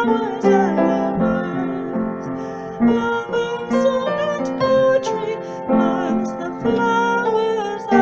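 Music from a song: a keyboard, piano-like, playing chords and melody notes that change every half second or so.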